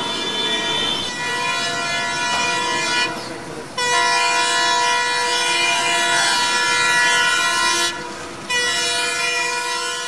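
Diesel locomotive 13607 sounding its horn in long, loud blasts, with short breaks about three and eight seconds in, over the rumble of the approaching train.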